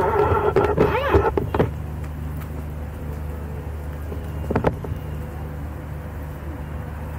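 Steady low hum of a river cruise ship's machinery heard from the open bow deck, with a person's voice over it in the first second and a half.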